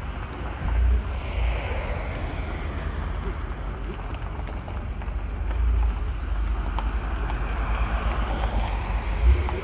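Wind buffeting the microphone in gusts, with a steady rush of background noise underneath.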